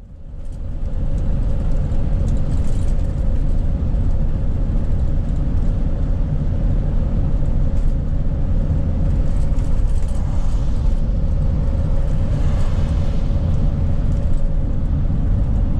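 Vehicle driving down the road, heard from inside the cab: a loud, steady low rumble of engine and road noise with a steady hum running through it, swelling up about half a second in.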